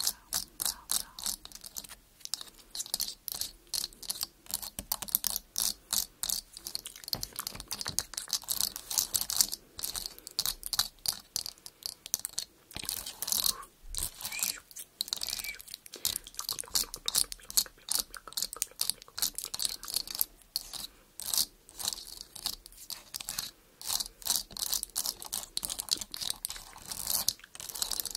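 Fingernails tapping and scratching on a camera lens, picked up close by the microphone as a busy run of short, crisp clicks, several a second.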